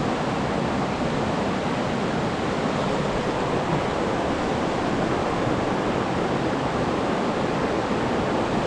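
Fast-flowing river in flood, its water rushing in a steady, unbroken wash.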